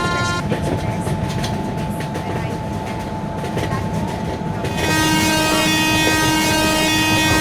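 Train running with a steady rumble and rail clatter. A locomotive horn cuts off just after the start, then sounds again in a long, steady blast from about five seconds in.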